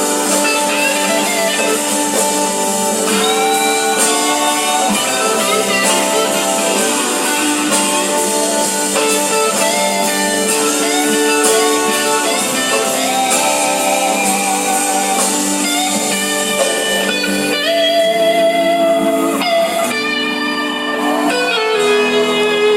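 A band playing a slow blues-rock song, with lead guitar holding long, wavering notes over the backing, and no singing.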